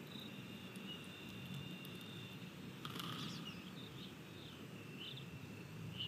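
Outdoor birdsong ambience at a feeder: a thin, steady high trill for about two seconds, then a short burst of bird calls with falling notes about three seconds in, and brief chirps near the end, over a low rumble.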